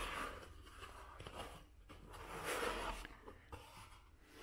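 Cardboard gift box being opened by hand: soft scraping and rustling of the cardboard lid and flaps, once at the start and again for longer about two and a half seconds in.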